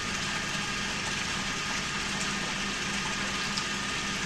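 A steady motor hum under an even hiss.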